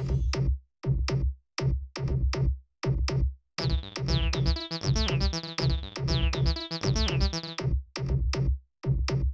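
Electronic background music: a steady drum-machine beat with synthesizer notes that join for a few seconds in the middle.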